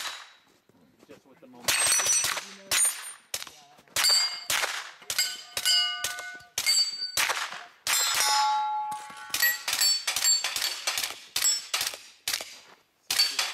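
A string of pistol-caliber carbine shots, starting about two seconds in and coming roughly one or two a second. Many are followed by steel targets ringing, each plate at its own pitch.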